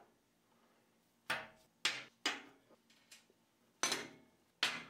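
Metal candle holder parts set down one by one on a workbench: five sharp knocks, each with a short ring.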